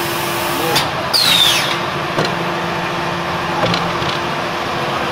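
Terrazzo tile production machinery running with a steady hum and mechanical noise, a short falling squeal about a second in, and a few light knocks.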